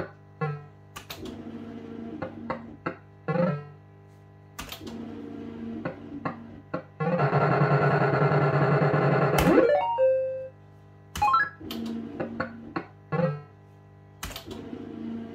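JPM Hot Pot Deluxe fruit machine playing spin after spin: sharp clicks, each followed by short electronic beeps, come every few seconds. For a couple of seconds near the middle a louder electronic tune plays.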